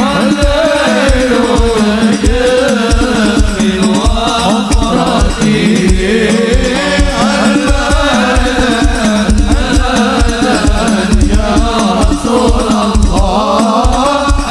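Sholawat, a devotional Islamic song: a melismatic sung melody over fast, dense hand-drum percussion, mixed with heavy boosted bass.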